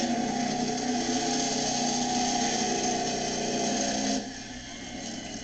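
Monster truck engine running hard at high revs during a timed run, a steady loud engine note. It drops off sharply about four seconds in.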